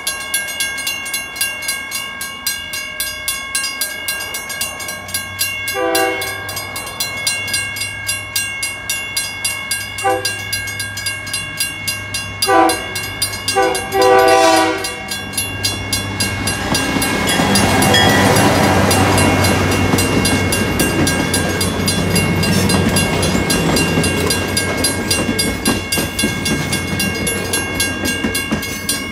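Railroad crossing bell ringing steadily as the Napa Valley Wine Train's locomotive sounds four horn blasts, the last the longest, for the grade crossing. About halfway through, the train rolls past the crossing with a rumble of engine and wheels that builds and then slowly eases.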